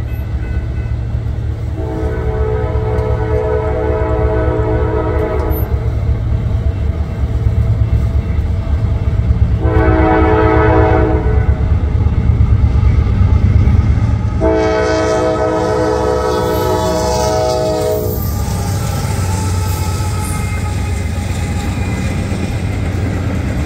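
Freight locomotive air horn, a K5LA five-chime on the lead GE AC44C6M, sounding the grade-crossing signal in three blasts: long, short, long. Under the horn, the diesel locomotives rumble steadily and grow louder as they approach, then run past close by after the last blast.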